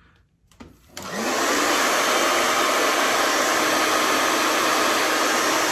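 Hand-held hair dryer switched on about a second in, then blowing with a steady rush.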